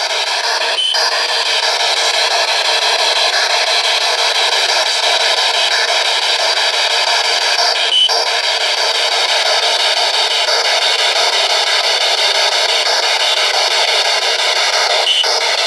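Spirit box (ghost radio) sweeping through radio frequencies, giving a loud, steady hiss of radio static with three brief clicks. It is being used to seek a spoken answer, the name of the woman in the red dress.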